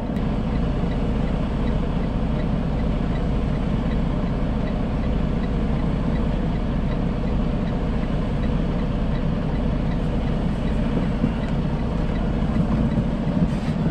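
Semi truck's diesel engine idling steadily, heard from inside the cab.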